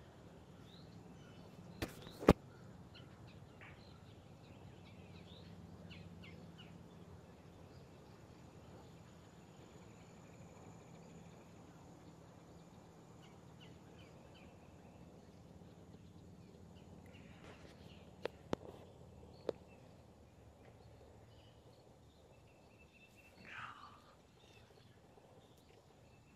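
Faint outdoor ambience with a steady low hum and scattered small bird chirps. Sharp clicks come about two seconds in and three more around eighteen to nineteen seconds, and a short falling call sounds near the end.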